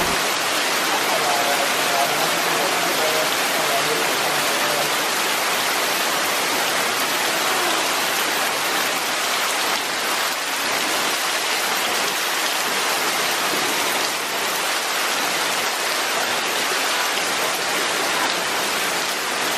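Heavy tropical storm rain pouring steadily on leaves and paving, a dense, even hiss that holds at one level.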